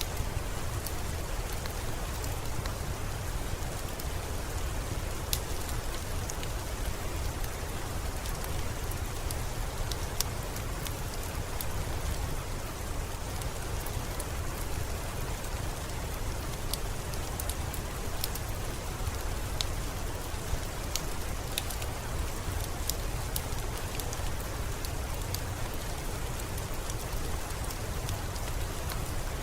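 Steady rain, a constant hiss over a low rumble, with scattered sharp taps of single drops striking nearby.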